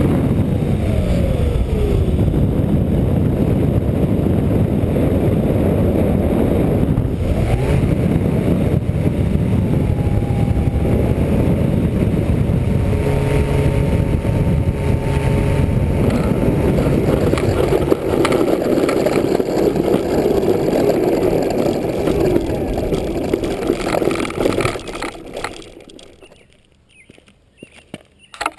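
An RC foam plane's electric motor winding down in pitch as the throttle is cut. Then a steady rush of air over the airframe as it glides in, with a brief faint motor tone in the middle. The sound fades to quiet near the end as the plane comes to rest.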